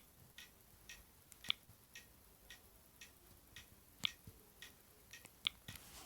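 Faint, regular ticking clicks, about two a second, a few louder than the rest.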